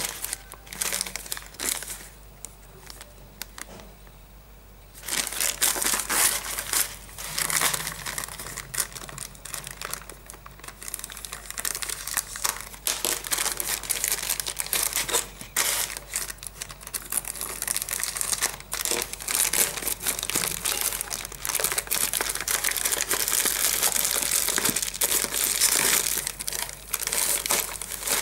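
Plastic courier mailer bag crinkling and tearing as it is ripped open by hand. It is sparse for the first few seconds, then crinkles steadily from about five seconds in.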